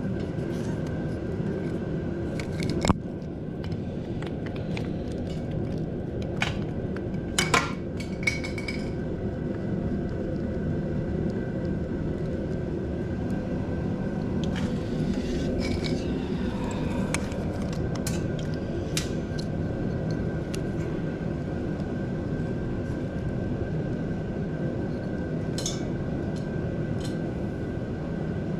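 Scattered metallic clinks and taps of tools and motorcycle parts being handled during throttle-cable work, with a sharp click about three seconds in and a small cluster of clinks a few seconds later, over a steady background hum.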